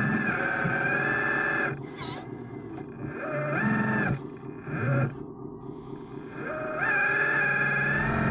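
RC construction machine's electronic engine sound module, revving up to a high steady note and dropping back three times.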